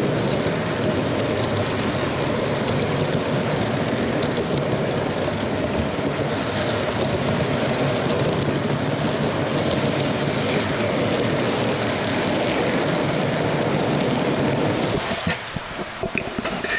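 HO scale model train running on its track, heard from a camera riding on one of its cars: a steady rolling rumble and clatter. About fifteen seconds in the rumble drops away and a few light knocks follow.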